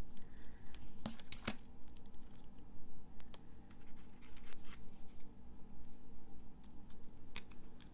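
Adhesive tape pulled from a roll and a gold-foil paper poinsettia handled on a card: scattered small clicks, snaps and rustles of paper and tape.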